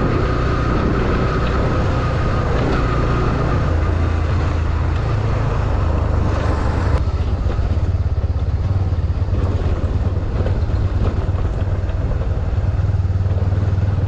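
Motorcycle engine running steadily while ridden along a rough road, its note dropping lower about four seconds in. A single sharp click comes about seven seconds in.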